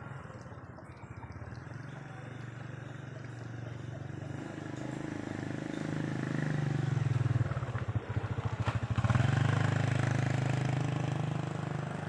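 A motorcycle engine running, growing louder from about four seconds in and loudest over the second half, with a brief dip shortly before it rises again.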